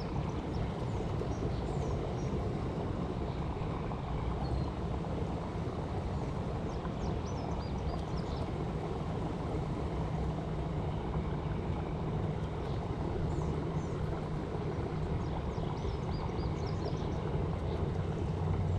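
Steady low engine-like drone under a continuous outdoor noise bed, with a few faint high chirps.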